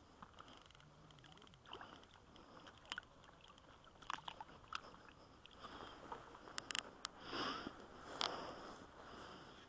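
Faint handling sounds at an ice-fishing hole: a gloved hand works the fishing line, with scattered sharp clicks and short scrapes. These cluster from about two-thirds of the way in, as a trout is pulled up out of the hole onto the ice.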